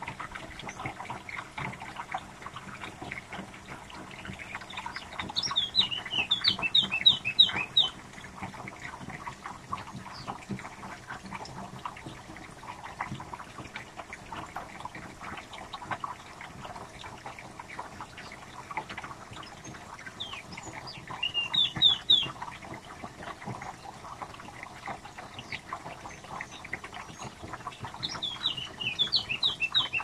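Birds calling: three bursts of rapid, high, downward-sweeping chirps, about five seconds in, around twenty-one seconds in and near the end, over continuous lower twittering.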